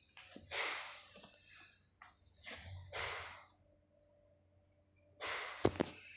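A person breathing close to the microphone: three soft breaths about two seconds apart, the last with two sharp clicks.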